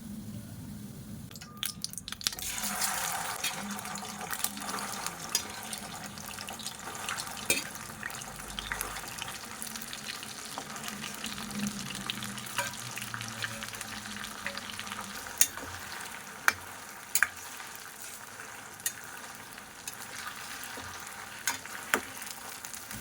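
Food sizzling in hot oil in a pan while it is stirred, with sharp clinks of the spoon against the pan. The sizzle picks up about two seconds in.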